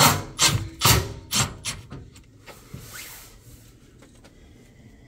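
Cordless Milwaukee impact driver running a screw into sheet metal in several short bursts, about two a second, stopping about a second and a half in.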